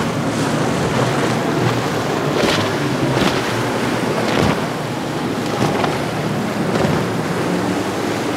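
Twin Yamaha 300 outboard motors on a center-console boat running at speed, with water rushing and splashing off the hull and wind buffeting the microphone. Near the end a different engine tone takes over.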